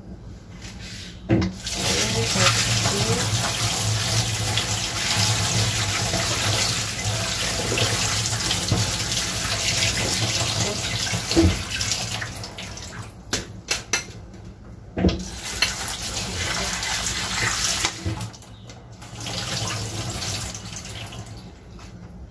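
Kitchen tap running into a sink while sliced cabbage is rinsed under it; the water stops and starts a few times, with a few knocks against the sink.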